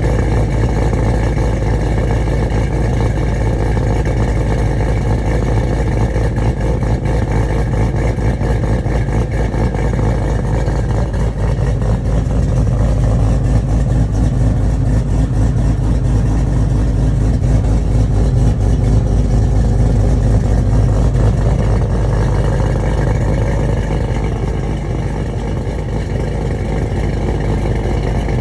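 A vehicle engine running through a loud exhaust with a custom-made tip, a steady deep exhaust note that swells a little midway and eases off again later.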